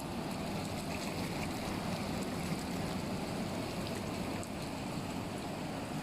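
Steady rush and splash of water in an outdoor spa tub with its massage jets and waterfall running.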